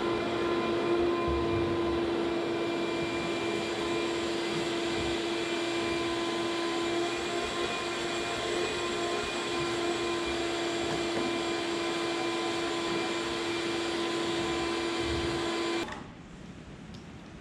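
Shop vacuum running steadily with a constant humming pitch as its hose sucks debris off a boat's floor. It cuts off suddenly near the end.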